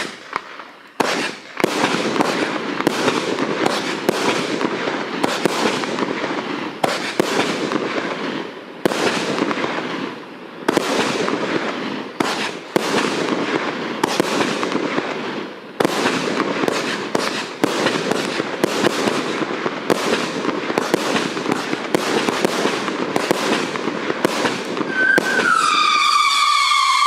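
A multi-shot firework cake firing shot after shot in a rapid, uneven run, each bursting with a crackling tail. About two seconds before the end a loud screaming whistle starts and slides slowly down in pitch: the girandola, a spinning rocket finish.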